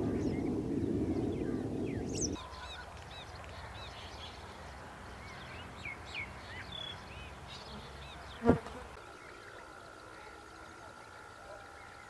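Many small birds chirping and twittering. A louder low din fills the first two seconds and cuts off suddenly. One loud, short call stands out a little past the middle, and a thin steady tone holds over the last few seconds.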